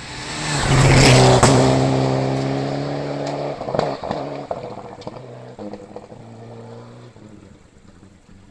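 Rally car passing at speed on a gravel stage, its engine loudest about a second in and then fading steadily as it drives away, with a few sharp cracks along the way.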